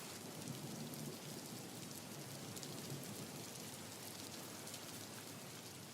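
Rain falling with a fine, even patter, faint and slowly fading.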